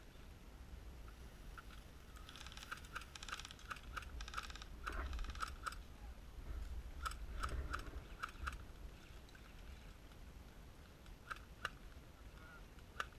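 Airsoft guns firing: scattered sharp clicks and short rapid bursts of clicks, thickest a few seconds in and again around the middle, with a few single shots near the end over a low rumble.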